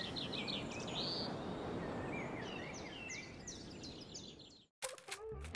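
Outdoor ambience of a soft, steady hiss with small birds chirping in short repeated trills. It fades out near the end, and after a brief silence a few sharp clinks begin.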